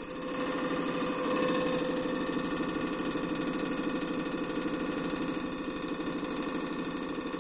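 EPS205 common rail injector test bench running an injector test: a steady mechanical whir with fast, even clicking, growing a little louder in the first second or so.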